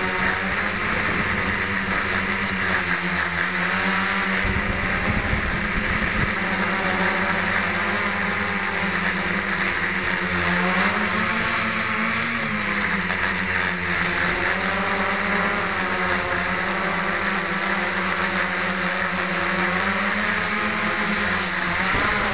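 Octocopter's eight motors and propellers buzzing steadily in low flight, heard close up from the camera on the frame. The pitch wavers up and down a little as the throttle is adjusted, most clearly about ten seconds in and again near the end.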